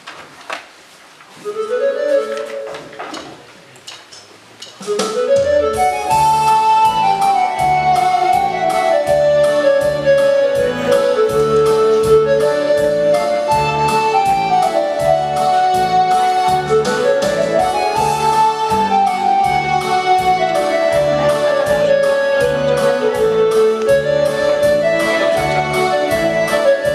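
Yamaha Tyros 5 arranger keyboard playing instrumental music. A few held notes come first, then about five seconds in a steady rhythm-and-bass accompaniment starts under a melody line.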